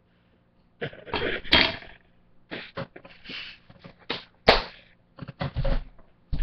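Harsh, irregular coughing and spluttering that starts about a second in: the dry, powdery ground cinnamon taken by the spoonful is catching in the throat.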